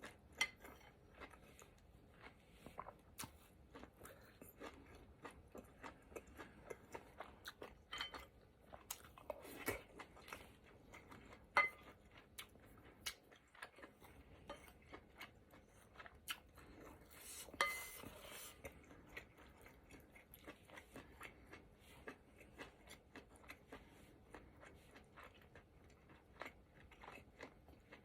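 Close-up chewing of soft, chewy food, rice cakes and soup, with many small wet mouth clicks. A few sharper clinks of a spoon against the bowl stand out, the loudest about twelve and eighteen seconds in.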